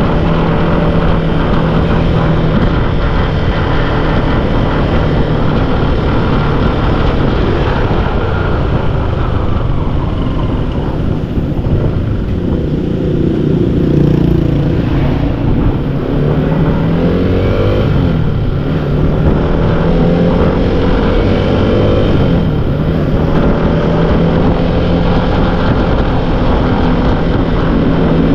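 Motorcycle engine running while riding, over a steady rushing noise. The engine pitch rises and falls several times around the middle as the throttle is opened and eased off.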